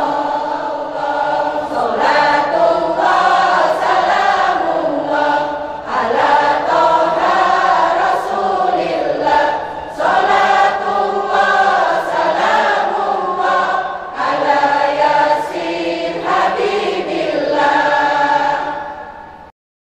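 Women's choir singing together in unison. The singing fades and cuts off just before the end.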